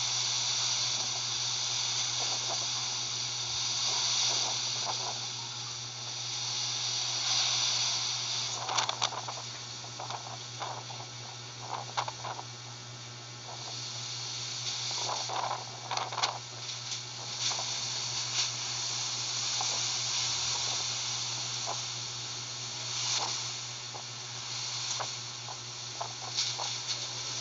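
Typhoon-force wind rushing and gusting, swelling and easing in waves. Scattered short knocks and rattles come through, mostly in the middle stretch.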